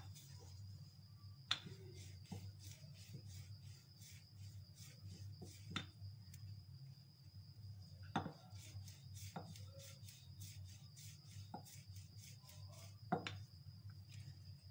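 Wooden rolling pin rolled over a slice of bread on a plastic-covered counter, with a faint rubbing and a handful of sharp knocks as it bumps the surface.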